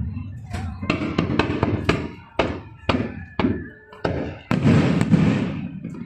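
Aerial fireworks shells bursting in a quick series of sharp bangs, each ringing out briefly, running together into a denser rumble of overlapping bursts a little past halfway.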